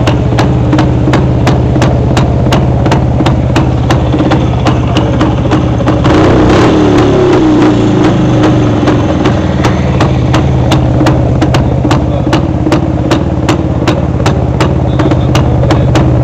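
Single-cylinder two-stroke engine of a 1966 Jawa 250 motorcycle idling, with a sharp tick about four times a second. About six seconds in it is briefly revved, then falls back to idle.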